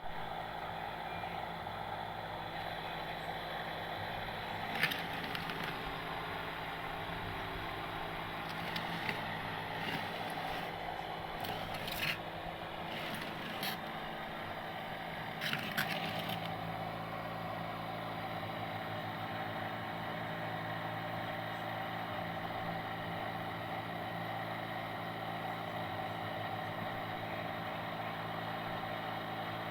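A motor running steadily with an even hum, with a few sharp clicks and clatters between about five and sixteen seconds in.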